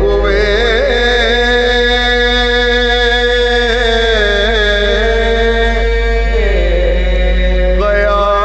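A man's voice chanting a soz-o-salam, a devotional lament, holding one long ornamented note that falls away about six to seven seconds in before a new phrase starts near the end. A steady low hum runs underneath.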